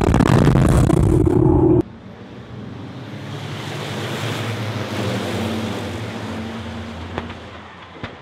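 A loud passage cuts off abruptly about two seconds in. Then the diesel engines of a pack of racing trucks pull away from the start, swelling and then fading. Near the end come two sharp knocks as the trucks collide.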